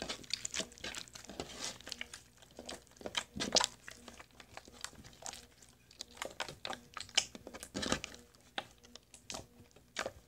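Homemade sticky slime being kneaded and squished by hand, giving a run of irregular wet clicks and crackles.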